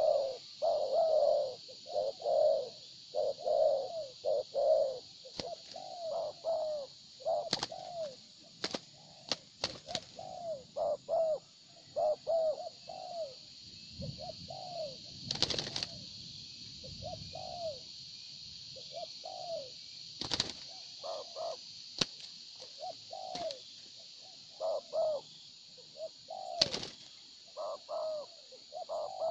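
Spotted doves cooing over and over in quick runs of short, arched coos, the calls of birds sparring. A steady high hiss runs underneath, with a few sharp clicks and a brief rustle about halfway.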